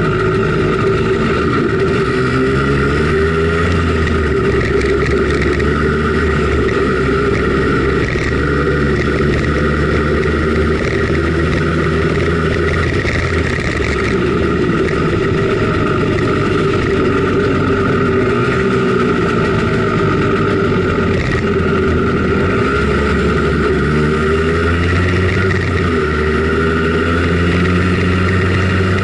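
Simson Schwalbe KR51/2 scooter's 50 cc two-stroke single-cylinder engine running under way, heard from on board. Its pitch rises and falls several times.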